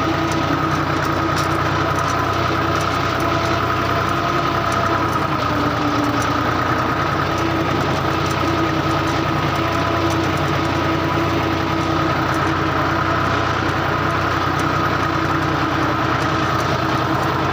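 A motor runs steadily as the DIY mini tractor pushes soil with its front blade, making a constant hum with a steady whine on top.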